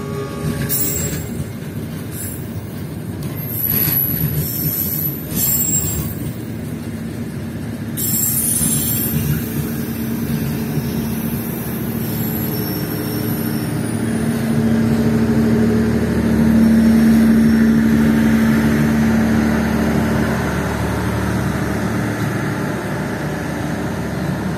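Long passenger train rolling slowly past close by: a steady rumble of coach wheels on the rails, with sharp clacks and brief high wheel squeals in the first half. A low steady hum swells in the middle and then eases.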